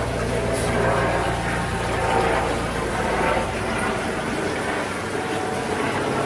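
Water sloshing and splashing in a plastic bowl as a koi swims round it, over a steady low mechanical hum that fades out about four and a half seconds in.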